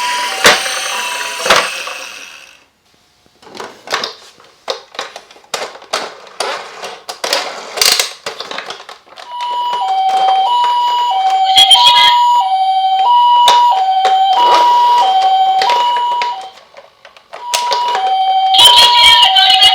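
Electronic two-tone ambulance siren, the Japanese 'pee-po' type, switching between a higher and a lower tone about once a second. It sounds in the first second and again from about halfway in, with a short break near the end. In between come a few seconds of irregular clicks and knocks.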